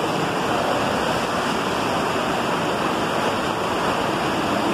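Steady rush of flowing water from a stream running through a limestone cave, an even hiss with no breaks.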